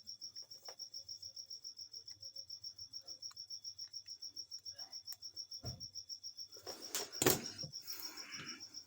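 A cricket chirping steadily in an even, fast pulse of about eight to nine a second, with a couple of sharp knocks about two-thirds of the way through.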